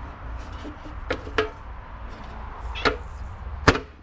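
Four sharp clacks, the last near the end the loudest, as the small latch handle on a Ryobi benchtop drill press is pushed shut and will not close, because the latch is bent.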